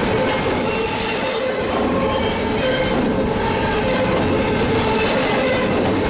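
Union Pacific double-stack intermodal freight train passing close by: a steady, loud rumble and rattle of well-car wheels on the rails, with brief high-pitched tones coming and going over it.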